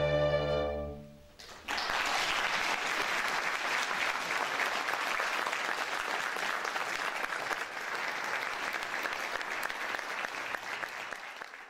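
A string orchestra and classical guitar hold a final chord that fades out about a second in. The audience then breaks into applause, which starts suddenly and carries on steadily.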